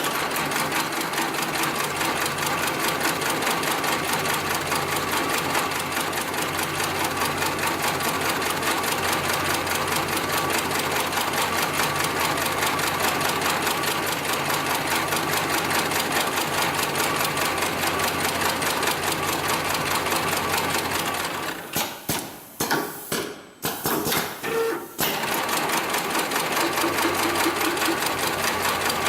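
Extra-heavy-duty programmable pattern sewing machine running, stitching with a fast, even rhythm. About three-quarters of the way through it stops and starts a few times in short pauses, then runs steadily again.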